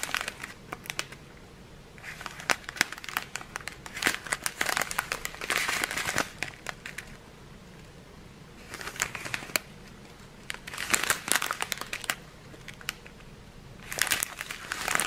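Small clear plastic zip bags of round diamond-painting drills crinkling as they are handled, in several bursts with short pauses between.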